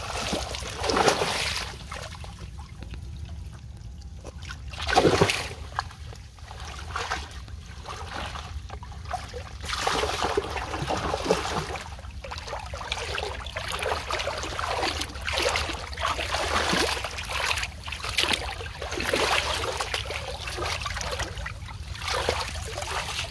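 Large fish thrashing in a cast net in shallow river water, splashing hard about one and five seconds in, then a long run of uneven splashing. Near the end, water pours and trickles from the net as it is lifted.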